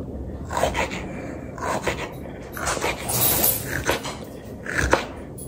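Kitchen knife chopping red onion: irregular knocks and a scrape, with a few short high-pitched whines in the second half.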